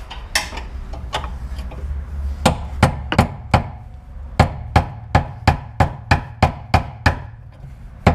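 Hammer blows at a stuck fastener on the car, tried instead of a breaker bar to get it undone. A few light knocks come first, then about two and a half seconds in a steady run of sharp strikes, about three a second, with one short pause.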